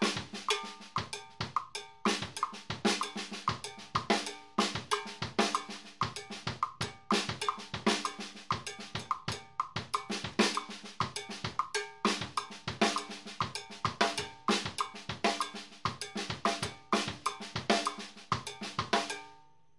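Drum kit playing a Latin groove: a left-foot clave on a pedal-played LP block against a bass-drum tumbao, with quarter notes on a cowbell and snare and tom fill-ins. The strokes run dense and steady, then stop just before the end.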